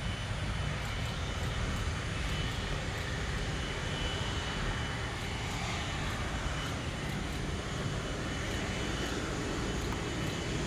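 Airbus A330-300's Rolls-Royce Trent 772B turbofan engines running at taxi power: a steady rumble with a faint, even high whine.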